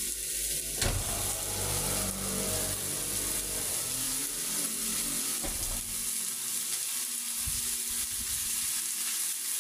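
Pieces of meat sizzling on a hot sac griddle, a steady frying hiss, with one sharp tap about a second in.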